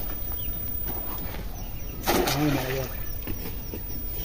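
A snail rake thrown on a rope lands in a pond with a splash about two seconds in. A short voice-like sound comes with the splash.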